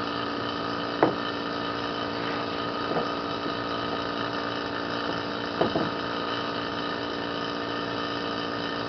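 Small oil-type vacuum pump running steadily, pulling vacuum on a vacuum-bagged composite laminate. A couple of brief knocks sound over it, about a second in and again past the middle.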